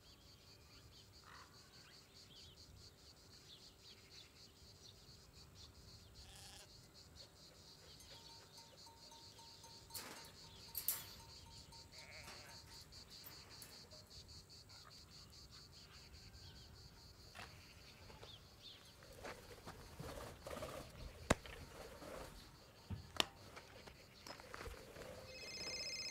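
Faint, steady chirping of insects in a grassy field, with a few soft knocks and clicks scattered through the second half. Near the end a high electronic ringtone starts, louder than the rest.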